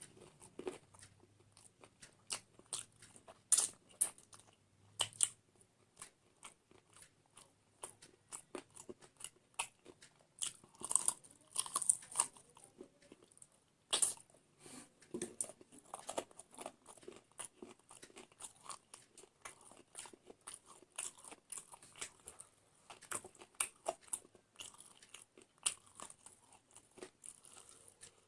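A person chewing and crunching food with many small, irregular crackles and clicks of biting.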